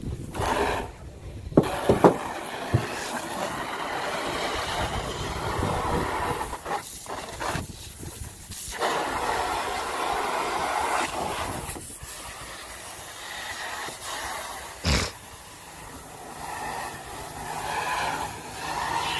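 Water from a garden hose running into a plastic kiddie pool, a steady hiss that dips briefly a couple of times. A few sharp knocks sound about two seconds in.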